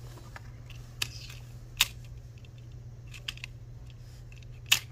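A few scattered sharp clicks and taps of laminated cards and a cardboard dartboard spinner being handled on a wooden table, the sharpest near the end, over a steady low hum.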